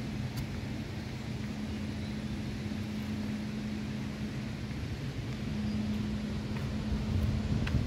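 Steady low hum with an even rushing noise beneath it, from the hydroelectric power station at the river weir running.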